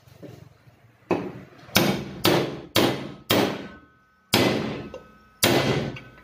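Seven hard hammer blows on a steel drift rod set in the bore of a power tiller's cooling-fan hub, driving a bearing. Several blows leave a short metallic ring.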